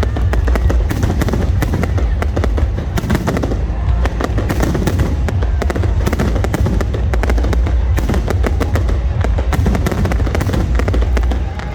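Aerial fireworks display: a dense, unbroken run of bangs and crackles over a heavy low rumble of booms.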